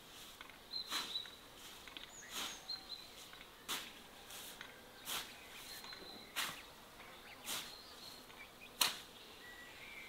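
A scythe swishing through grass in steady strokes, about one every second and a half, seven in all, the last the loudest. Birds chirp faintly between the strokes.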